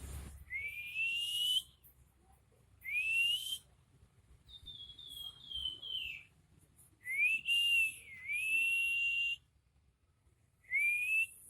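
Pelamboyan songbird singing in clear whistles, in separate phrases with pauses between them. There are upward-sliding notes, a quick run of four short falling notes, and a long held note near the middle.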